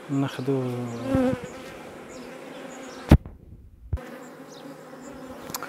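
Honeybees buzzing in an opened hive, a steady hum. A sharp click about three seconds in is followed by a brief cutout of all sound.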